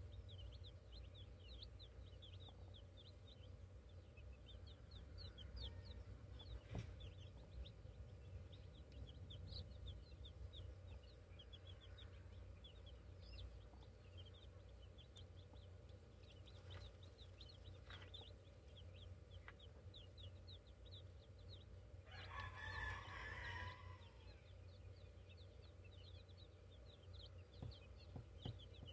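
Faint, steady peeping of young chicks, many short falling cheeps over a low background hum. About three-quarters of the way in a rooster crows once for about two seconds, the loudest sound.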